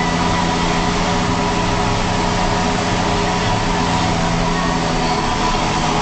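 John Deere 6920S tractor's six-cylinder diesel engine running steadily under load, pulling a five-furrow Dowdeswell plough.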